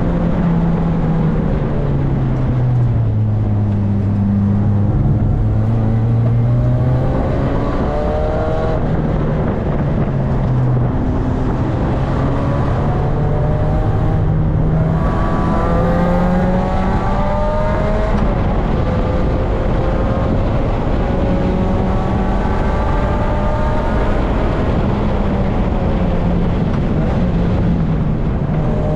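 Supercharged 2005 Lotus Elise's four-cylinder engine heard from inside the cockpit while lapping a track. The revs drop in the first few seconds, then climb several times in quick succession as the car accelerates, and run steadier toward the end.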